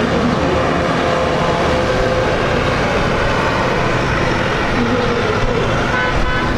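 Boeing 787-10's Rolls-Royce Trent 1000 engines running at low taxi power as the airliner lines up on the runway for takeoff: a steady jet rumble and hiss.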